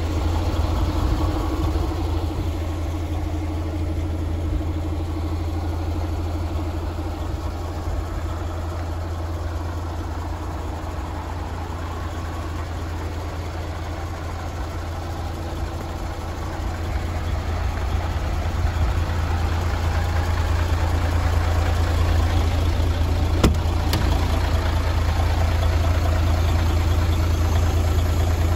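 Mercedes-Benz Actros 2641's V6 diesel engine idling steadily, growing louder in the second half. A couple of sharp clicks come near the end.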